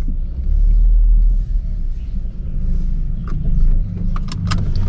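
Low rumble of a Renault Fluence 2.0 running, heard from inside the cabin, with a few light clicks near the end.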